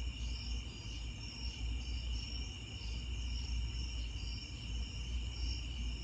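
Chorus of night insects, such as crickets, trilling steadily, with a second, higher pulsing chirp on top and a low steady rumble underneath.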